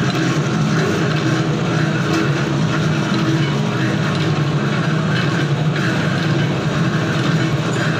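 Automatic thread rolling machine running steadily, its motor and flywheel driving the rolling dies with a continuous low hum.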